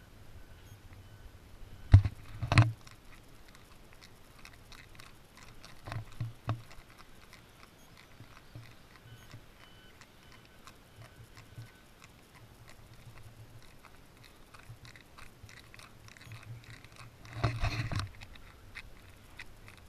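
Thumps, knocks and rustling from a handheld camera being carried on foot, with scattered faint ticks. There are two sharp knocks about two seconds in, softer ones around six seconds, and a longer, noisier burst near the end.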